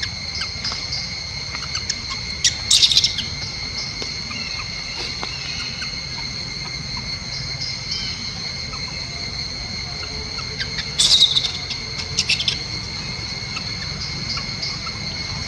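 Steady high-pitched drone of insects, with short shrill bursts of animal calls about two and a half seconds in and again about eleven seconds in.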